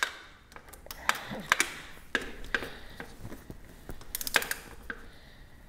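Irregular metal clicks and clinks from a ratchet-head inch-pound torque wrench and 6-point socket being fitted and ratcheted onto the cylinder head nuts of a Honda CB350, with a quick cluster of clicks about four seconds in.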